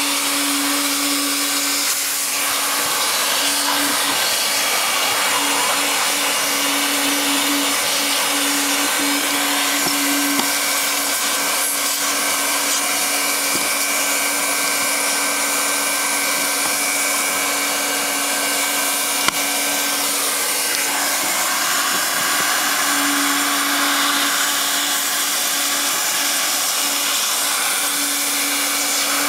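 Handheld hot-air plastic welding gun blowing steadily with a constant motor hum while it heats an HDPE liner patch for tack-welding.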